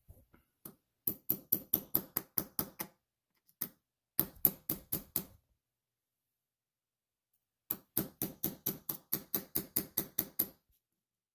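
Small watchmaker's hammer tapping a pin punch to drive a cotter pin out of a stainless steel watch bracelet link. The taps are light, sharp and metallic at about five a second, in three runs: about ten, then about six, then a longer run of about fourteen near the end. The pin fits very tightly in the link.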